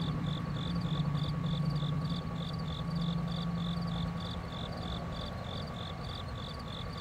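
Cricket chirping sound effect, an evenly spaced high chirp about three times a second over a low steady hum. It is the comedic 'crickets' gag marking an awkward silence.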